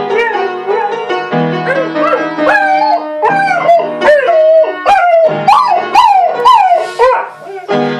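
Flat-coated retriever howling along to a piano, in a string of short rising-and-falling howls that come louder and closer together from about two seconds in.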